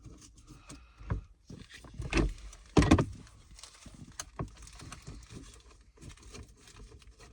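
A plastic Ziploc bag holding small screws and locking rings being handled: scattered light clicks and rustles, with two louder knocks about two and three seconds in.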